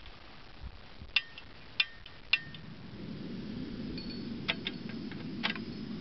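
Canister gas camping stove being lit: three sharp igniter clicks, then the burner catches about two and a half seconds in and burns with a steady low flame noise. A few light metallic clinks come near the end.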